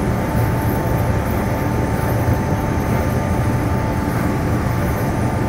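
Truck-mounted hydraulic timber loader crane working, swinging a grapple-load of logs: its engine and hydraulics run steadily as a low rumble with a thin, steady whine over it.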